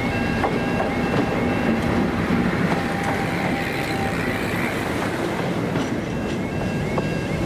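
Diesel-hauled train running past on the line: a steady loud rumble and rush of the locomotive and coaches, with a few clicks from the wheels over the rail joints.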